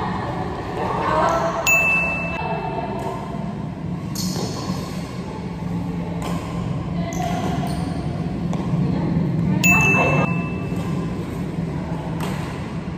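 Badminton rackets striking a shuttlecock during play: sharp, short hits every second or two over a steady background of voices.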